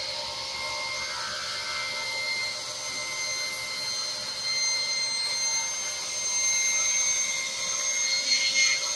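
Powermatic table saw running with a steady whine while a jig pushes a segmented wooden ring through the blade, slicing it into a thinner ring. The sound grows louder in the second half, with a brief louder burst near the end.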